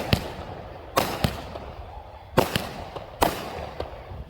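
A 200-gram consumer fireworks cake firing its shots: sharp bangs about once a second, some coming in quick pairs, each trailing off before the next.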